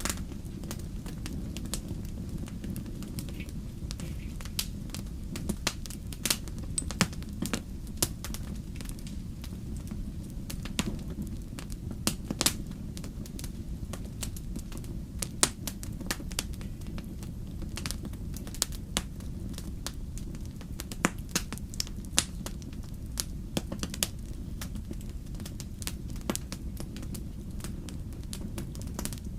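Wood fire burning in a fireplace: a steady low rumble of flames, with irregular sharp crackles and pops of burning logs throughout.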